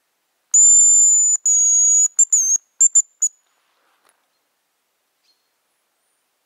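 Hazel grouse decoy whistle blown close by, giving the hazel grouse's song: two long, very high, thin whistled notes followed by a quick run of short clipped notes. Heard as a lure to call a hazel grouse in.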